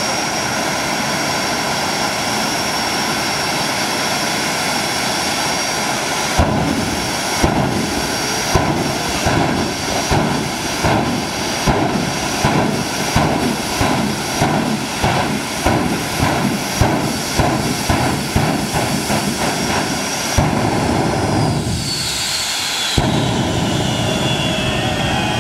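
Twin Rolls-Royce Viper turbojet engines running with a steady high whine. From about six seconds in, repeated loud whooshing bursts come roughly twice a second for some fourteen seconds: the afterburners being pulsed to breathe fire. Near the end a loud whoosh comes as the flame is lit again, and the whine's pitch slides down.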